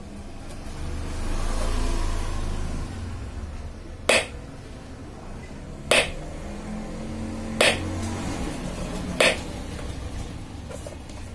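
Tactile push-button switches on a freshly soldered copier panel PCB being pressed one at a time, giving four sharp clicks about 1.7 seconds apart over a low rumble.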